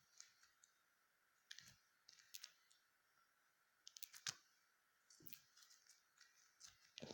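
Faint, scattered clicks and small pops from slime being handled gently, with a sharper click about four seconds in.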